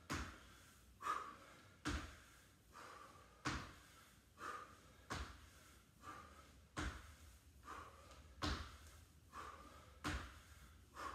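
Squat jumps: trainers landing with a thud on a wooden floor about once a second, with hard breaths between the landings.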